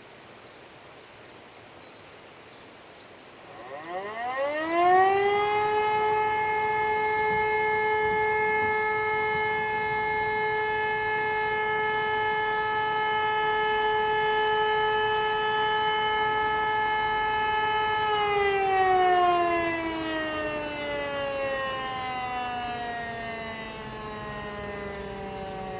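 Helin L141 siren sounding a test signal. A few seconds in it winds up to one steady tone, holds it for about thirteen seconds, then winds down with falling pitch.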